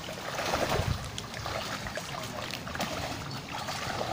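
People wading through shallow, muddy water among mangrove trees: irregular sloshing and splashing steps, with branches and leaves brushing past.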